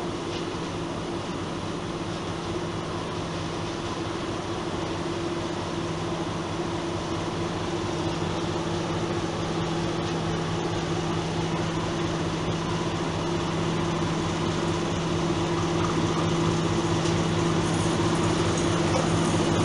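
PKP SU42 diesel locomotive drawing slowly into the station with a train of double-deck coaches, its diesel engine running with a steady low hum that grows gradually louder as it approaches.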